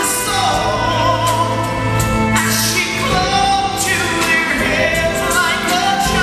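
A man singing a ballad live, with long held notes that waver in vibrato, over a steady instrumental accompaniment.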